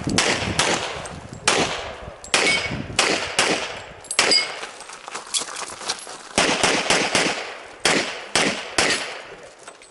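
Pistol firing a fast, irregular string of well over a dozen shots, many in quick pairs, each with a short echo; the firing stops near the end.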